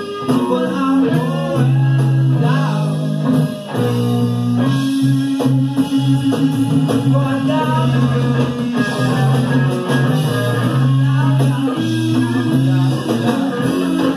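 Blues-rock band playing live, with an electric lead guitar soloing in bent notes over sustained bass and drums, heard through a soundboard mix recorded to cassette.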